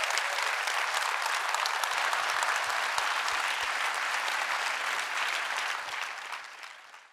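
Large audience applauding, a dense steady clapping that fades out near the end.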